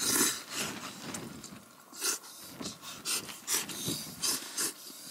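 Instant cup noodles being slurped with chopsticks, a string of short, irregular slurps.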